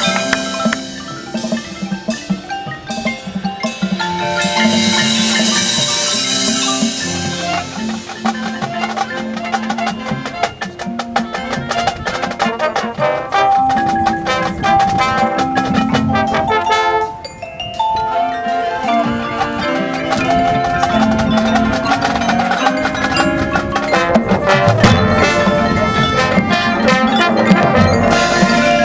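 Marching band playing, with mallet percussion such as marimba, xylophone and glockenspiel prominent over drums. The music drops back briefly about 17 seconds in, then builds again.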